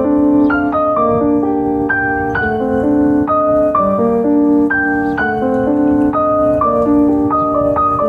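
Background music: a gentle piano melody of steady, evenly paced notes.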